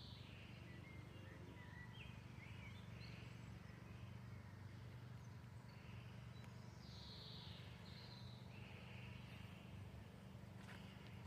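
Faint birdsong outdoors: short chirps and warbling phrases every second or two, over a low steady hum.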